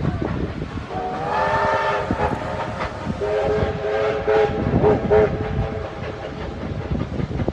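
Steam locomotive whistle blowing: a short blast that slides up in pitch as it opens, then a longer blast that ends in a couple of quick toots. Under it, the rumble of the train's carriages rolling over the rails.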